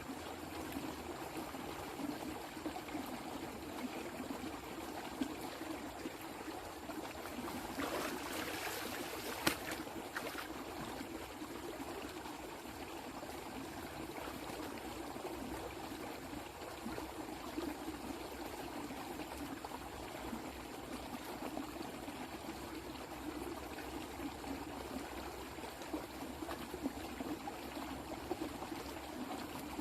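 Water running steadily, as in a stream or a runoff channel after heavy rain. About eight to ten seconds in it grows briefly louder, with one sharp knock.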